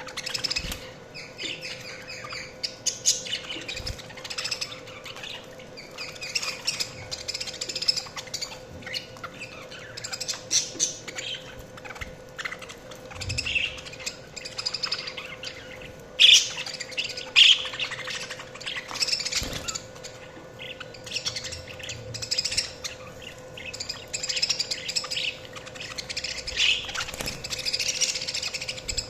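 Budgies chirping and warbling continually, with a few louder squawks partway through, over a steady faint hum.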